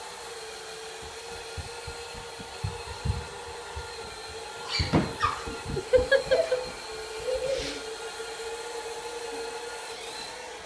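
Robot vacuum cleaner running with a steady motor hum, with a cluster of knocks and bumps near the middle.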